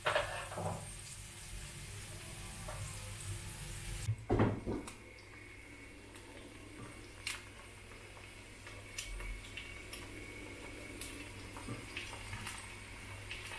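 Kitchen work sounds: a steady hiss that stops about four seconds in, then a clatter and light scattered clinks of dishes and cutlery.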